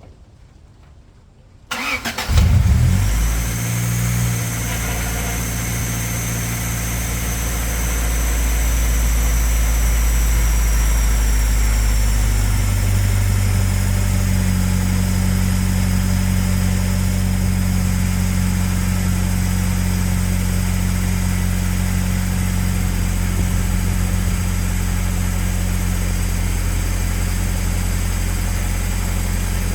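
Car engine cranking briefly and catching about two seconds in, then idling steadily, its note changing about twelve seconds in. This is the first start after a water-pump swap.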